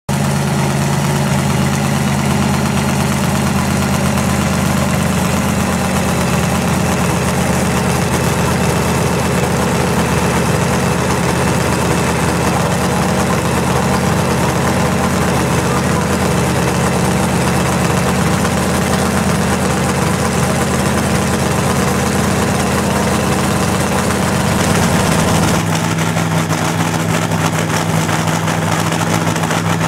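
Supercharged engine of a sidewinder rear-engined dragster idling steadily and loud, its note shifting slightly near the end.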